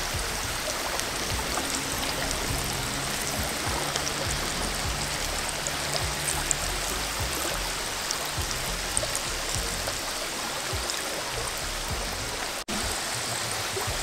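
Breaded chicken strips deep-frying in hot oil in a cast-iron pan: a steady sizzle with small crackling pops, cutting out for an instant near the end.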